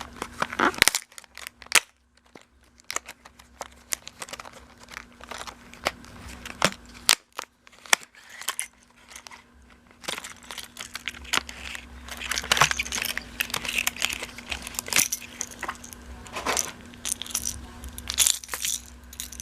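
Plastic lure packaging being crinkled and handled, with a long run of sharp clicks and clatters, the crankbait's internal rattle beads knocking as it is shaken. The clicks come thickest in the second half.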